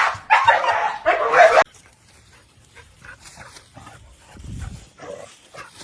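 A dog barking and whimpering, loud at first and cut off sharply about a second and a half in, then quieter short vocal sounds.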